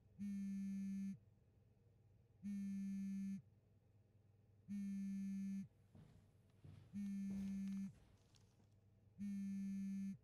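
Mobile phone vibrating on a table for an incoming call: five even buzzes, each just under a second long, about two seconds apart. Softer knocks and shuffling near the middle as a cardboard box is set down on the table.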